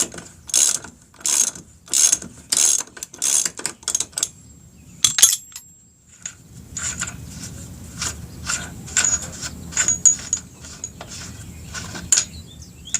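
Socket ratchet clicking in quick back-and-forth strokes, about one and a half a second, running the already-loosened 36 mm axle nut off the motorcycle's wheel. The strokes stop about four seconds in, then a single metallic click and lighter, irregular clicking follow over a low hum.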